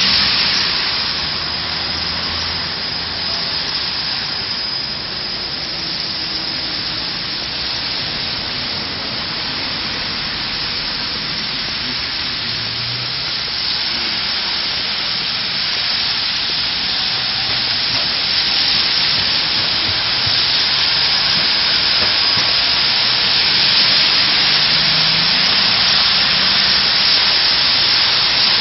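Road traffic on a wet street: a steady hiss of tyres on water and slush with a low rumble of engines, growing louder in the second half as more vehicles pass close by.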